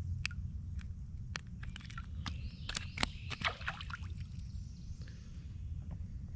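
Hands unhooking and handling a small spotted sunfish and a light lure: scattered small clicks and taps, with a short cluster of louder clicks and rustling about three seconds in, over a steady low rumble.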